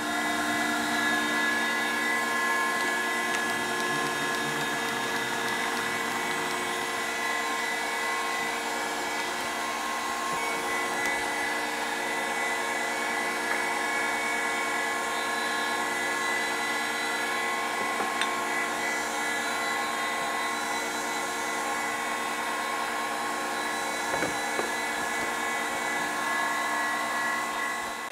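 Hydraulic surface grinder running: a steady motor-and-pump whine with a constant hum, and a couple of light metal clicks near the middle and toward the end.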